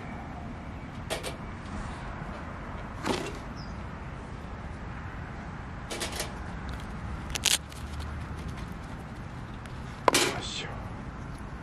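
Five short clicks and knocks of things being handled and set down, spread a few seconds apart and loudest near the end, over a steady outdoor background hiss.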